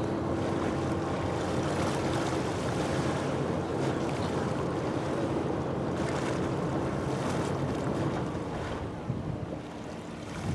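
Steady low drone of an approaching cargo ship's engine over the wash of the river, with wind buffeting the microphone; it eases a little near the end.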